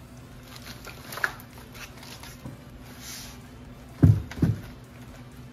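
Two dull thumps about four seconds in as frozen packages of meat are set down and shifted inside a chest freezer, with a little plastic-bag rustling about a second in.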